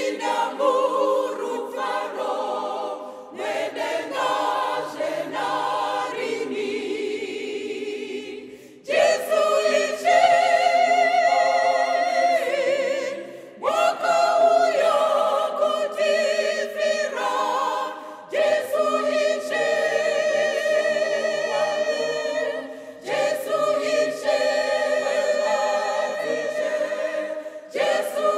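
A choir singing a slow hymn, in sustained phrases a few seconds long with brief breaths between them.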